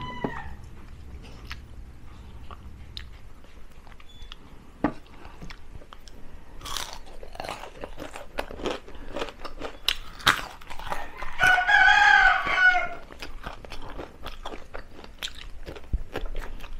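Crunching and chewing of deep-fried crispy chicken feet, bones and all, with sharp crunches all through. About twelve seconds in, a rooster crows for about a second and a half, the loudest sound here.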